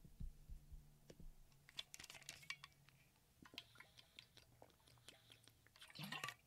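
Near silence: faint scattered clicks and small handling noises over a low steady hum, with a brief slightly louder rustle about six seconds in.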